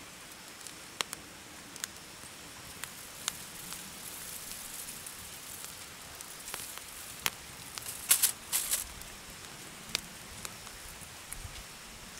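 Wood fire crackling: scattered sharp pops over a faint steady hiss, with a cluster of louder pops about eight seconds in.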